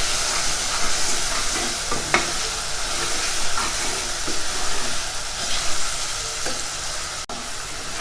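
Chopped tomatoes and onions frying in oil over a high flame, a steady sizzle, with a few short scrapes of a spoon stirring them in the pot.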